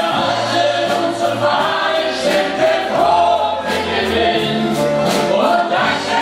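A mixed group of men and women singing together in chorus over instrumental music with a steady beat and a stepping bass line.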